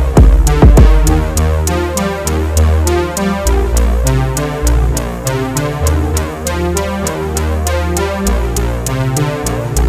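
Electronic background music: synthesizer melody over a deep bass line and a steady ticking beat, with a few heavy drum hits in the first second.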